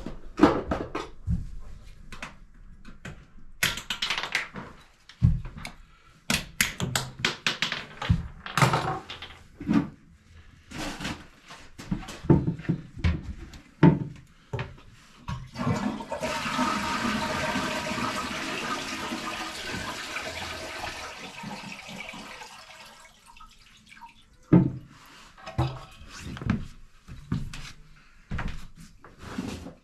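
Knocks and clatter for about the first half, then a toilet flushes: a steady rush of water lasting about seven seconds, followed by a few more knocks.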